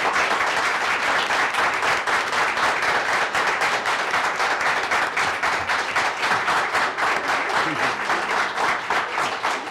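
Audience applauding: many people clapping at once in a steady, dense patter of hand claps.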